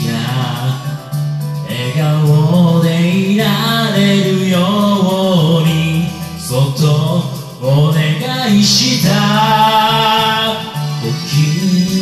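A solo voice singing a Japanese pop ballad over a karaoke backing track, phrase by phrase with short breaths between lines.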